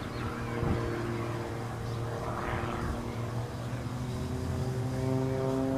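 Piston engine and propeller of an aerobatic plane in flight, a steady pitched drone that rises slowly in pitch over the last couple of seconds as the plane dives.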